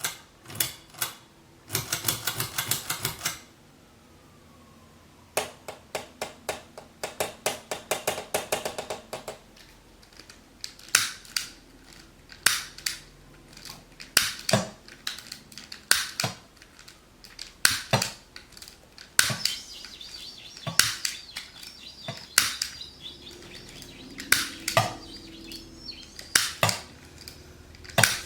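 Foley clicks and knocks: two quick runs of rapid ticking clicks, then single sharp clicks about a second apart.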